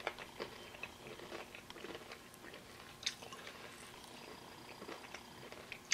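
Faint chewing of a crispy breadcrumb-coated mac and cheese shrimp bite, with scattered small crunches and mouth clicks.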